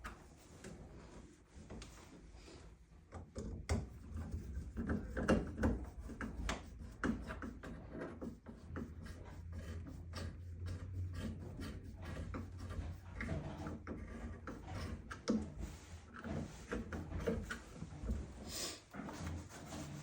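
Scattered knocks, clicks and rubbing of hands and tools working on shower-valve fittings and wall framing, over a low steady hum.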